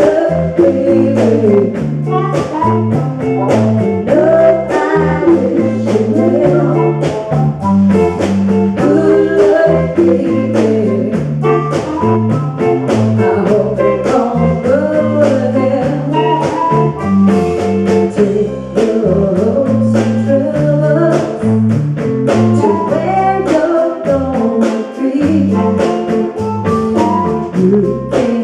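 Live blues band playing a song, with sung vocals over amplified guitar, a walking bass line and a steady drum beat.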